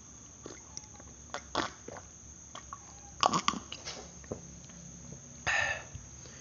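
A person sipping and swallowing a drink from a glass: scattered small clicks and mouth noises, a louder cluster of clicks about three seconds in, and a short breathy burst near the end.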